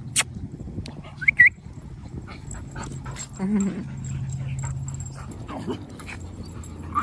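Dogs whimpering and yipping in short, high, rising squeals while they play, with a lower pitched sound about three and a half seconds in.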